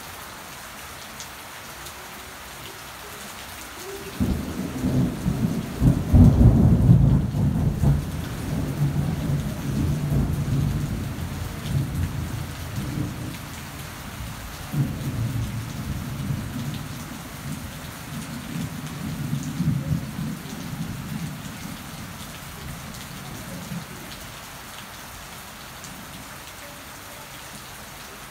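Steady rain falling on garden plants, with a long roll of thunder. The thunder breaks in sharply about four seconds in, is loudest a couple of seconds later, and rumbles on in waves for most of the rest before fading back to the rain alone.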